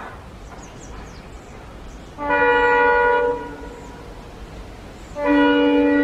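Indian Railways diesel locomotive sounding its multi-tone horn twice, each blast about a second long and about three seconds apart, over the low rumble of the approaching train.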